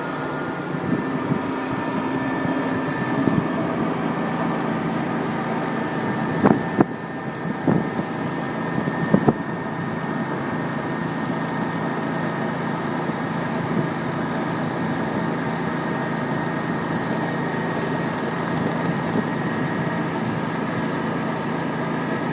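Pressure-washing rig at work: a surface cleaner fed 260-degree water from a steam pressure-washer unit, with a water-reclaim vacuum pulling the runoff back up. It makes a steady machine drone with several held tones, and a few brief sharp noises between about six and nine seconds in.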